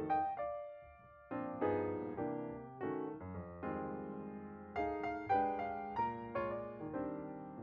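Background piano music, with chords struck and left to ring, changing every second or so and briefly thinning out about a second in.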